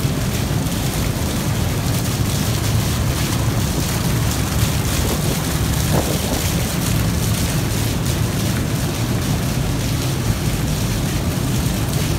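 Water pouring from an overhead pipe into an overflowing plastic trash can and splashing onto a concrete floor: a steady rushing splash over a low, even rumble.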